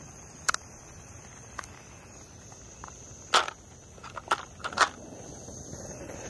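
Several sharp plastic clicks as a red flip-top spice shaker is snapped shut and pressed back into its plastic spice box, the loudest about halfway through. A steady high insect trill carries on behind.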